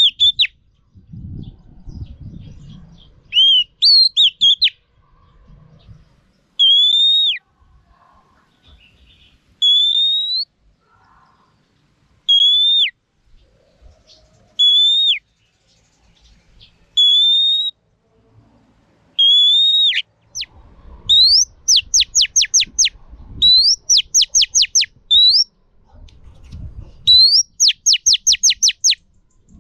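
Female oriental magpie-robin calling, the kind of call used to excite males. It gives single slurred whistles every couple of seconds, each rising then dropping sharply. About two-thirds of the way through, it switches to quick runs of rapid rising notes. Soft low thumps come between the calls.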